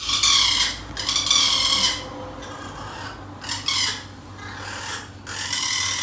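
Pet parrot giving harsh, rasping screeches in several bursts, the loudest in the first two seconds, with shorter ones later on. It is scolding.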